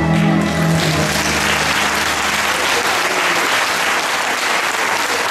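Audience applauding as the last held notes of the music fade out; the clapping swells in within the first second and carries on steadily.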